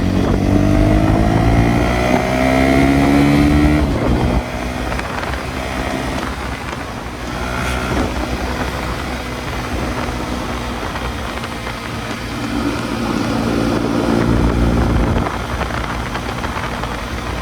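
KTM Duke 250's single-cylinder engine through its stock exhaust, its pitch rising as the motorcycle accelerates for about four seconds before it eases off. It climbs again about twelve seconds in and drops back a few seconds later, with wind on the microphone.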